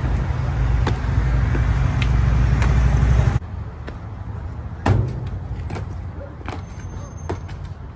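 Outdoor rumble with sharp thuds and taps of parkour landings and footfalls on paving, the loudest thud about five seconds in. The heavy rumble drops off suddenly about three and a half seconds in.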